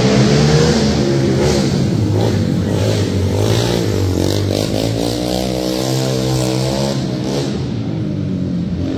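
Sport quad's single-cylinder 450cc four-stroke engine revving up and easing off through the turns of a dirt track, its pitch rising and falling again and again, with the quad passing close about four seconds in.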